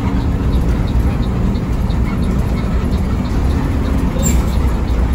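Intercity bus driving, heard from the driver's cab: a steady low engine rumble with road noise. A brief high chirp sounds about four seconds in.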